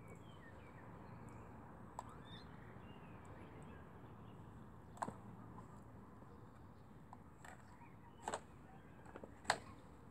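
Kittens scuffling in a plastic crate: a few scattered light clicks and taps over a faint steady hiss, the loudest near the end.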